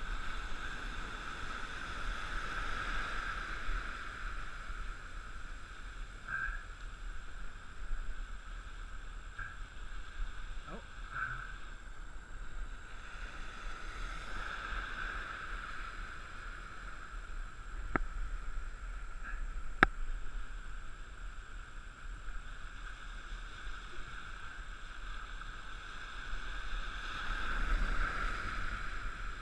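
Surf breaking and water washing around a wading angler: a steady rushing noise that swells and eases and grows louder near the end, with two sharp clicks a couple of seconds apart past the middle.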